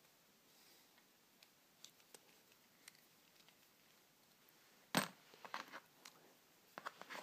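Faint scattered metallic ticks, then a sharp metallic clack about five seconds in followed by several quick clicks: small metal lock parts being handled.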